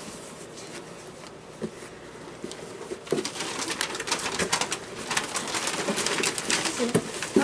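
Wrapping paper crinkling and tearing as a present is unwrapped, getting busier and louder about three seconds in, with a few short low coo-like sounds among it.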